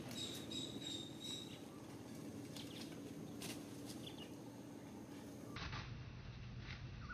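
Outdoor ambience: a run of short, high chirping calls, about three a second, in the first second and a half, then scattered faint rustles and clicks. About five and a half seconds in, the background changes abruptly to a low steady hum.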